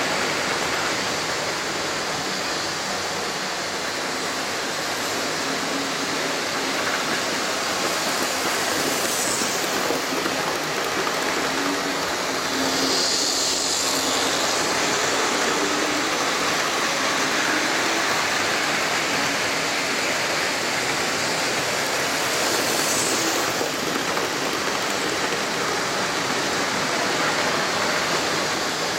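OO gauge model trains running on the layout: a steady rushing of metal wheels on the track and the whirr of the locomotives' electric motors. It grows louder and brighter about twelve seconds in, as a model diesel locomotive passes close by.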